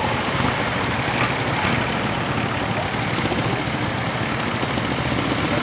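Steady engine and road noise of traffic passing close by: a small car and then a van drive past.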